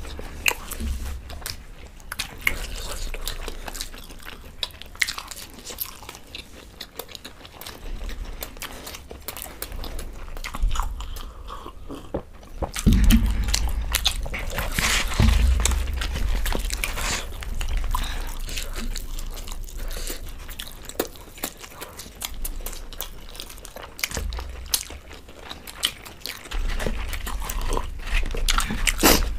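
Close-up eating sounds: people chewing and biting mouthfuls of mooli paratha, with fingers tearing the flatbread and scraping on wooden plates. A few dull thumps come around the middle.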